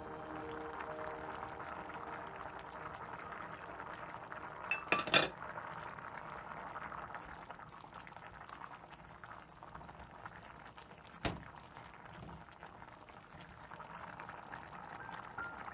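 Butternut squash soup boiling in a pot, a steady bubbling, with a quick cluster of clinks against the pot about five seconds in and a single sharp tap about eleven seconds in.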